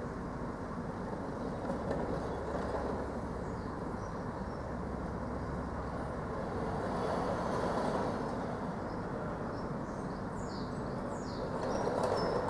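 Steady noise from a refrigerated home delivery van being loaded in a supermarket goods yard, swelling around eight seconds in and again near the end, with a low hum under the first half. A few high bird chirps come near the end.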